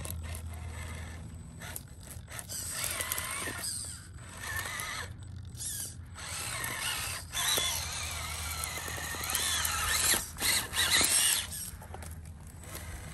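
Losi Nightcrawler 1/10-scale electric rock crawler's motor and geared drivetrain whining in repeated short bursts of throttle as it climbs over rocks, the pitch rising and falling with each push. The loudest bursts come near the end.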